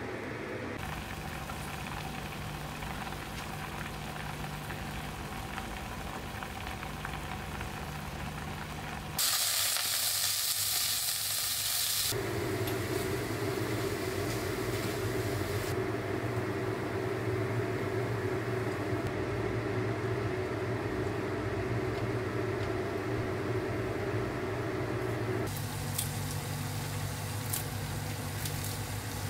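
Cauliflower and braised pork ribs cooking on the stove, with a loud burst of sizzling about nine seconds in that lasts about three seconds, then a steadier frying sizzle. A steady low hum runs underneath throughout.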